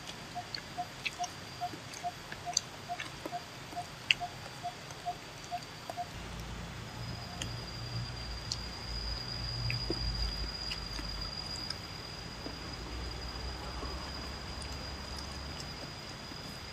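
Eating sounds: chewing, lip smacks and small clicks as people eat fried chicken and rice with their hands. Behind them, a steady high insect drone, and a short piping note repeated about two to three times a second that stops about six seconds in, after which a low rumble sets in.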